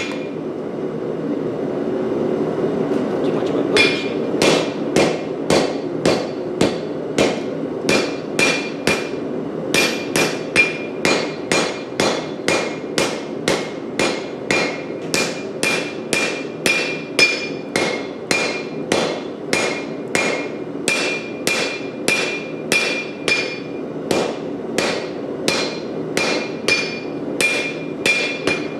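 Hammer blows on hot Damascus steel at the anvil, about two a second, each with a short metallic ring, over the steady running of a propane forge. The hammering starts about four seconds in, after a few seconds of the forge alone.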